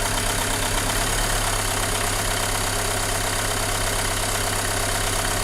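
Renault Mégane II engine idling steadily while its connectors are pulled and refitted one cylinder at a time, a test to find the cylinder behind a shaking, power-less running fault.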